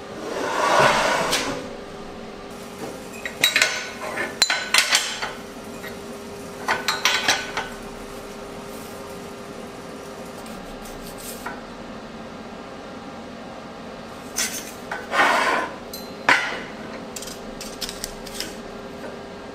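Steel square tubing clanking and scraping against a steel welding table as frame pieces are set down and slid into place, in several separate bursts with a metallic ring.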